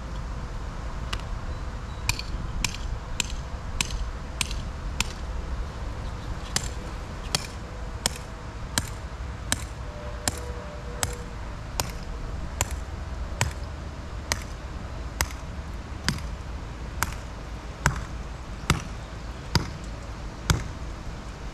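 Steady hammer blows driving a ground stake to anchor an inflatable water slide. A quick run of about two strikes a second comes first, then a slower, even beat of one strike every two-thirds of a second, the last few strikes the loudest.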